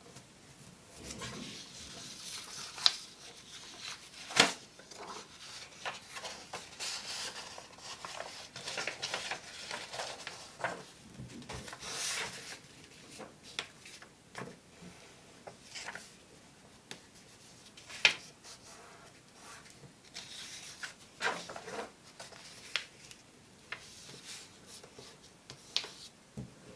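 A sheet of paper being handled and folded by hand on a tabletop: rustling and sliding, with scattered sharp snaps and taps as it is creased and set down.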